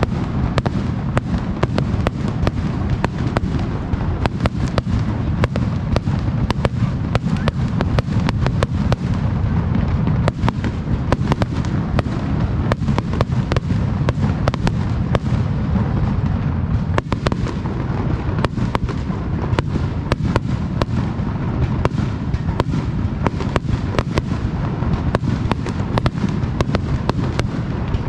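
Fireworks display with aerial shells bursting in rapid succession: a dense run of sharp cracks, several a second, over a continuous low rumble of booms.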